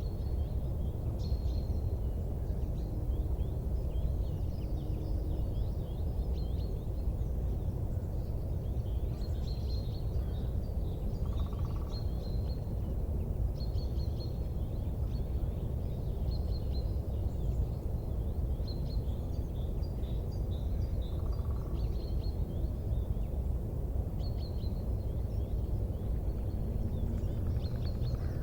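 Small birds chirping in short, high, repeated calls over a steady low rumble.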